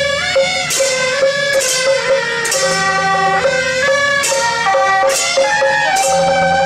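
Traditional Taiwanese procession band: suona (Chinese double-reed horns) playing a melody over a steady held note, with drum and crashing percussion every second or so.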